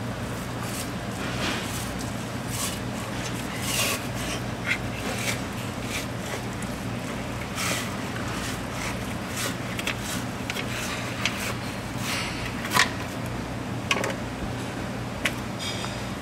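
A long slicing knife scraping and knocking against cobia skin and a wooden cutting board as the fillet is skinned, in irregular short strokes over a steady low hum.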